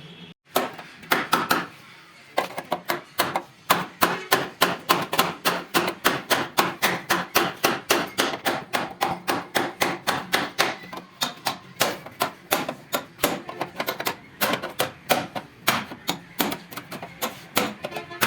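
A hammer striking metal in rapid, steady blows, about four a second, each with a short ring, with a brief pause about two seconds in.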